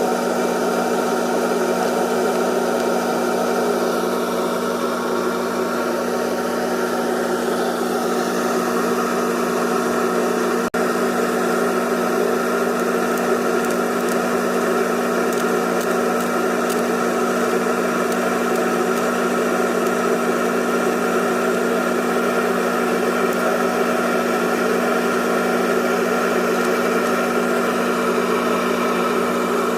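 Electric motor running with a steady hum and several higher whining tones; the sound dips for an instant about eleven seconds in.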